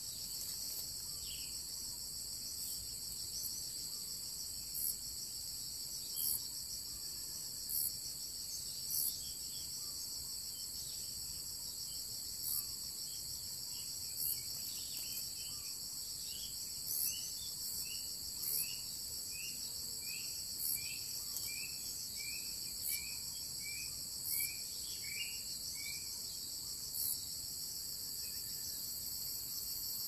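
Steady high-pitched drone of an insect chorus, with a louder pulse about every one to two seconds. From about a third of the way in to near the end, a run of short falling chirps comes about twice a second.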